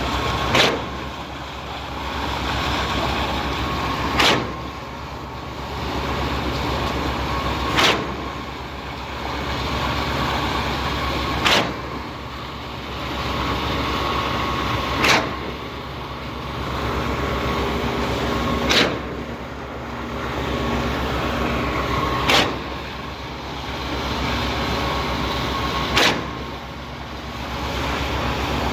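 Cifa K42L truck-mounted concrete pump working: a steady engine and hydraulic drone with a sharp clunk about every three and a half seconds, eight in all, as the swing valve shifts at each change of piston stroke.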